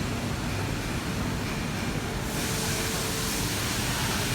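Steady background rumble and hiss with no distinct events, the hiss turning brighter about two seconds in.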